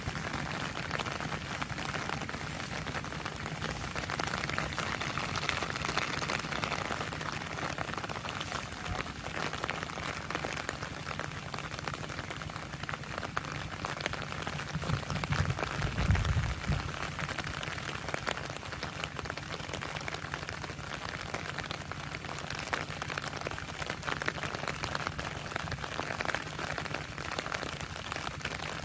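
Heavy rain falling steadily, a dense patter of drops. About halfway through, a brief low rumble lasting a second or two is the loudest moment.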